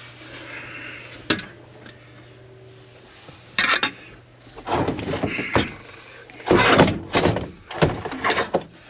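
Handling noises from work inside a car: a sharp click about a second in, then a run of irregular clunks, thumps and scrapes in the second half.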